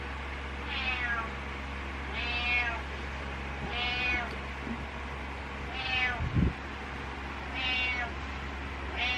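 A cat meowing over and over, about six meows spaced a second and a half to two seconds apart, each one falling in pitch. A short low thump comes a little past halfway, over a steady low hum.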